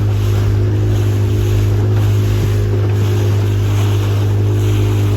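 Motorboat engine running at a steady, unchanging pitch, with a steady rush of wind and water over it.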